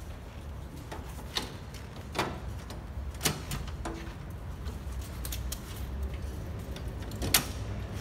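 Scattered clicks and knocks of hands working the camper trailer's canvas fittings, unclipping and unzipping, with the sharpest knock near the end, over a low steady rumble.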